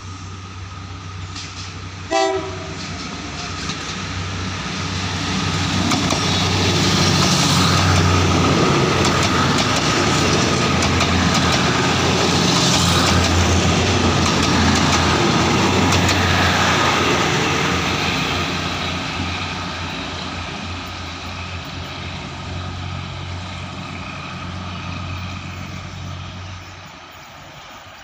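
Passenger train passing close by as it pulls away from the station: the engine hum and the clatter of the wheels on the rails build over several seconds, hold, then fade. A short horn toot sounds about two seconds in.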